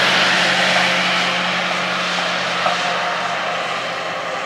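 Motor noise: a steady low engine hum under a broad rushing noise that peaks near the start and slowly fades, as from a passing vehicle.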